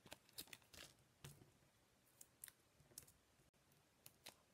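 Near silence, broken by faint scattered taps and light rustles of cardstock pieces being picked up and set down on a craft mat.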